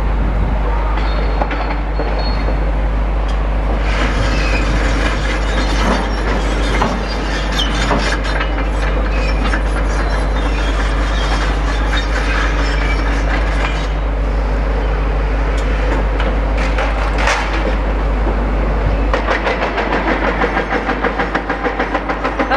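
Demolition excavators working with the engine running heavily and scattered knocks and clatter of breaking material. Near the end a hydraulic breaker on the excavator's arm starts hammering in a rapid, even pounding that echoes around the site.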